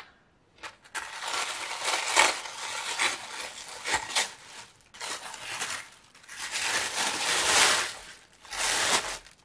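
Tissue paper wrapping rustling and crinkling as hands unseal and unfold it, in several bursts with short pauses between.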